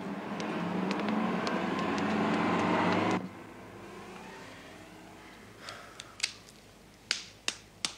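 Steady street traffic noise that cuts off abruptly about three seconds in. Then come a handful of sharp metallic clicks, about five over the last few seconds, as pistol cartridges are pressed one by one into a magazine.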